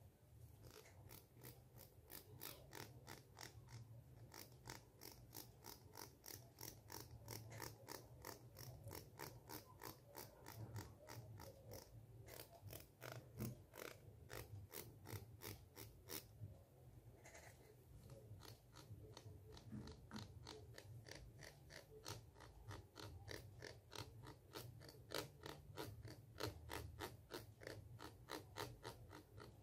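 Fingernail scratched along the teeth of a plastic comb held close to a microphone: faint rapid rattling strokes, about three a second, with a brief pause about 17 seconds in.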